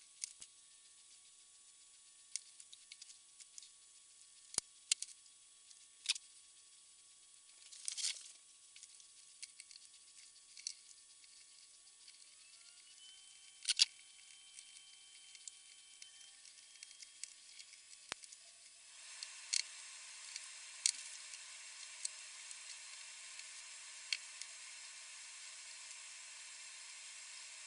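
Faint, scattered clicks and taps of small metal engine parts being handled and fitted together, over a low hiss that steps up in level about two-thirds of the way through.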